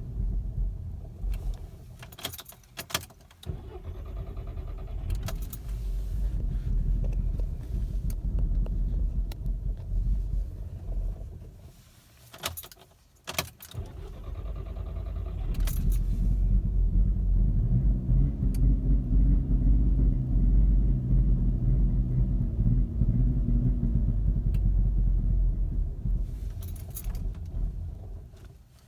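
Volkswagen Mk6 GTI's turbocharged four-cylinder engine idling roughly and dying out about eleven seconds in. After a few clicks it is restarted, runs steadily louder, then sags again near the end. This rough idle and stalling happens on a hot restart after the engine has sat for 15 to 20 minutes, and the owner cannot find the cause.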